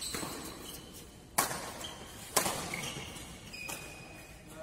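Two sharp smacks of badminton rackets hitting a shuttlecock, about a second apart, with short high squeaks of court shoes on the floor.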